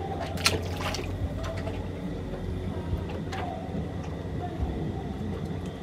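A steady low hum with a few faint clicks and taps over it.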